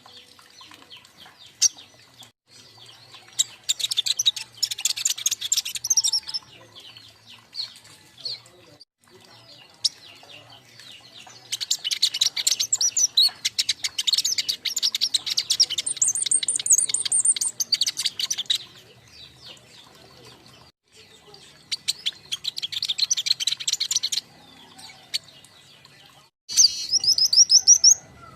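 Young king konin songbirds calling in several long bursts of rapid, high-pitched chirps and trills, with quieter chirping between the bursts.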